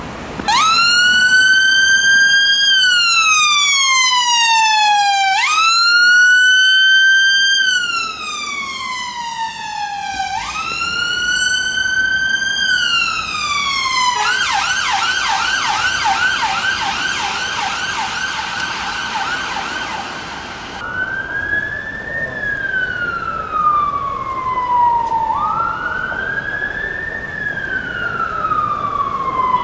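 Emergency vehicle siren on a slow wail, each sweep rising quickly and falling slowly over about five seconds. It switches to a fast yelp about halfway through, from a West Midlands Ambulance Service HART VW Transporter. After a cut, a British Transport Police Vauxhall Vivaro van's siren wails more quietly, in slightly shorter sweeps.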